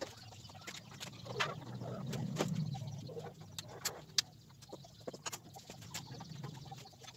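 Scattered clicks and light knocks of metal and plastic parts being handled as an intercooler and its hoses are fitted back onto a vehicle, over a low steady hum.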